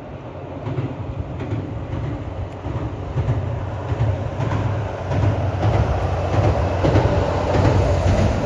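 JR West DEC700 diesel-electric railcar running past, its engine and wheels on the rails building to a loud rumble that peaks near the end.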